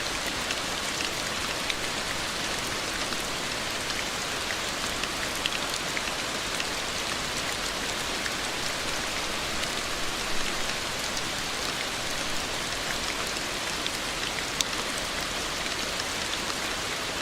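Steady rain falling, a dense even hiss dotted with the sharp ticks of single drops. A couple of louder drops stand out, about ten and fifteen seconds in.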